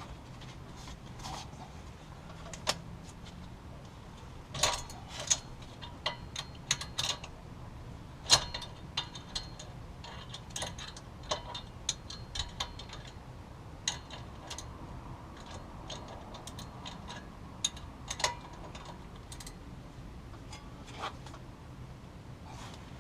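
Irregular metallic clinks and ticks of steel wrenches against each other and against a bolt head, with a cluster of sharper clanks between about 4 and 8 seconds in.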